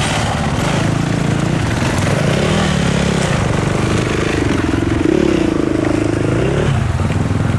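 Off-road vehicle engines running on a trail. One engine revs up, rising in pitch from about four seconds in, then drops off sharply near seven seconds.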